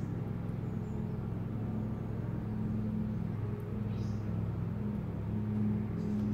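A steady low machine hum, like a motor or engine running without change, with a couple of faint brief high-pitched sounds about four and six seconds in.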